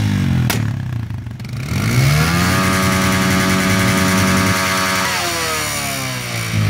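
Small youth quad (ATV) engine running close by: it drops to idle, revs up about a second and a half in, holds a steady high pitch for a few seconds, then eases off near the end. A sharp click about half a second in.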